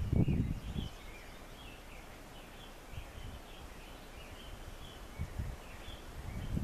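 Small birds chirping again and again, high and faint, over steady outdoor background noise, with a low rumble in the first second.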